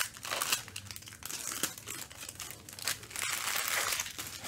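Foil trading-card pack wrapper being torn open and crinkled by hand, a run of sharp crackles and rustles.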